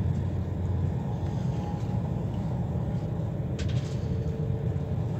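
Steady low rumble of an ICE 4 high-speed train running, heard inside a passenger car, with faint steady tones above it and a brief click about three and a half seconds in.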